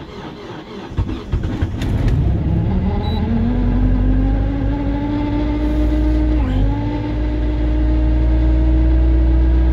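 A 2005 Nissan Primera P12's 1.6-litre four-cylinder petrol engine is cold-started at −35 °C. It cranks roughly and catches within about two seconds, then revs rise to a steady high fast idle. About six and a half seconds in the revs dip briefly, then recover and hold steady.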